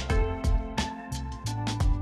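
Background music with a steady beat: bass, drums and plucked guitar.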